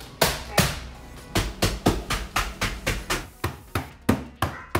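Cookies in a plastic bag being whacked into crumbs on a kitchen counter: a run of sharp hits, two at first, then about three a second.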